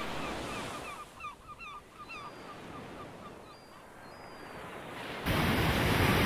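A flock of birds giving many short repeated calls in quick succession, fading away over the first two seconds or so. About five seconds in, the steady wash of ocean surf comes in abruptly.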